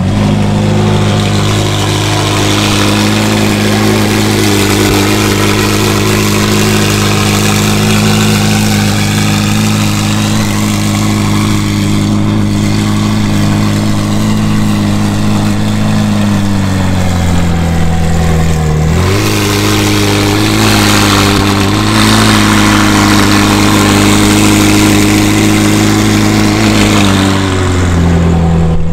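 McLaren Senna's twin-turbo V8 running at low revs as the car pulls away slowly. The engine note holds steady, sags a little over half way through, picks back up a couple of seconds later, and drops again near the end.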